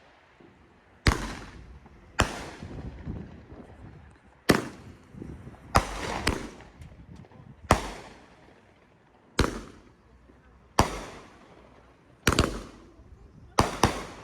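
Fireworks exploding: about ten sharp bangs at irregular intervals of one to two seconds, each trailing off in an echo, with two in quick succession near the end.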